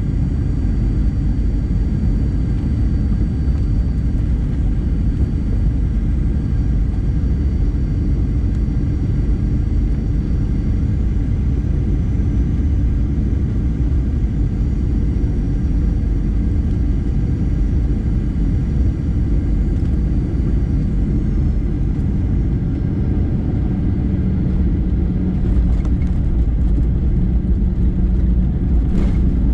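Cabin noise of a jet airliner on final approach: a steady low rumble of engines and airflow, with a faint high whine that fades out about two-thirds of the way through. Near the end comes a sharp thump as the main wheels touch down on the runway.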